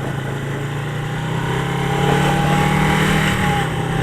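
1977 Suzuki GS400 twin-cylinder engine running under way, its note rising as the bike picks up speed, then dropping briefly near the end.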